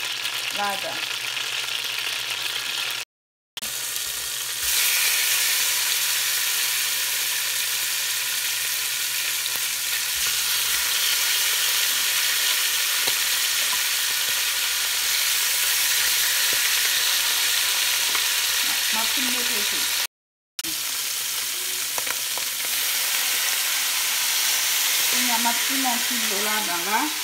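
Boiled chicken pieces sizzling as they fry in hot oil and butter in a large metal pot: a steady hiss that gets louder about five seconds in, broken twice by a split-second dropout to silence.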